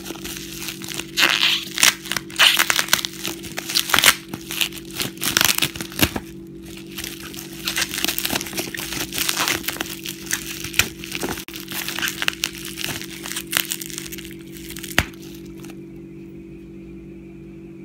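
Bubble wrap crinkling and crackling as it is handled, with many sharp crackles over most of the stretch and one louder click about fifteen seconds in before it goes quiet. A steady low hum runs underneath.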